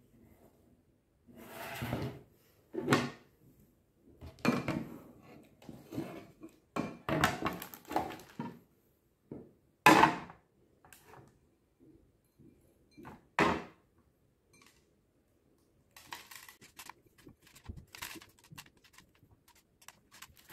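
Crockery handled on a table: a ceramic plate and bowl set down and shifted, giving a string of knocks and clatters, the loudest about ten seconds in. In the last few seconds comes a faint patter of almond crumble being sprinkled and pressed onto an ice cream bar.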